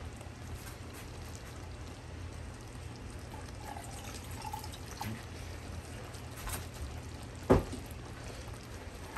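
Pot of jambalaya simmering, with faint scattered bubbling pops over a steady low hum, and one sharp knock about seven and a half seconds in.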